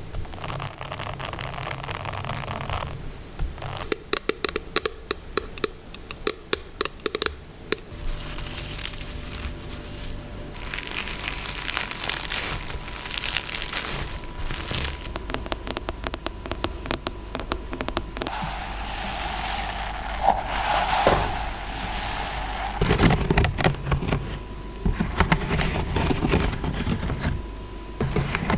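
ASMR tapping and scratching on objects: runs of quick, sharp taps alternate with stretches of scratching, the texture changing every few seconds.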